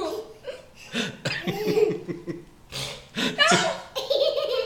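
Young child laughing in short bursts, with breathy, sputtering raspberry mouth noises in between.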